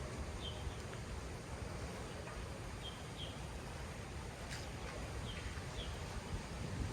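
A small bird chirping, short high notes given singly or in quick pairs about six times, over a steady low rumble of outdoor background noise.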